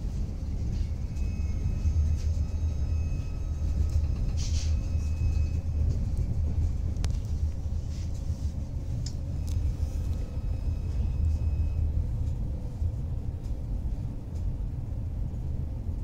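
Steady low rumble heard from inside the passenger car of an EG2Tv Ivolga electric train running along the line. Faint high whining tones come in twice, at about one second and again near ten seconds, each lasting a few seconds, with a few sharp clicks between them.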